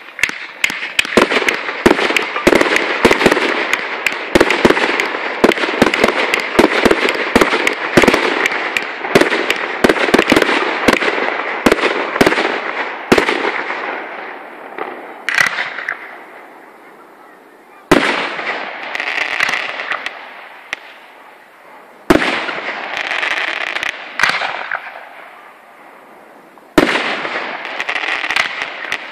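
Aerial firework shells bursting, with dense crackling from crackle stars and many sharp bangs for about the first fourteen seconds. After that, four separate bangs come a few seconds apart, each followed by a crackling shower that fades out.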